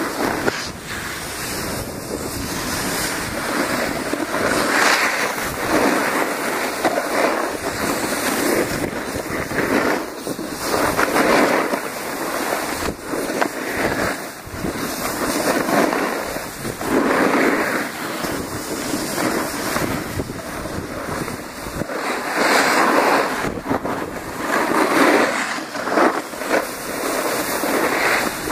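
Wind rushing over the microphone while riding downhill, with board or ski edges scraping across packed snow in surges that swell and fade every second or two as the rider turns.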